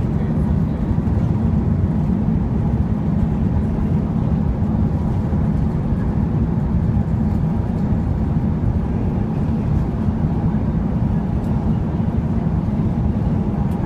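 Airbus A380 on its landing rollout, heard from inside the cabin: a loud, steady low rumble of the airliner rolling down the runway on its landing gear, spoilers deployed as it slows.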